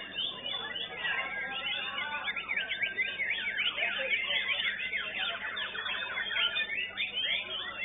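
White-rumped shamas (murai batu) singing in competition: a dense, unbroken stream of loud whistled phrases and rapid notes sweeping up and down, several birds overlapping.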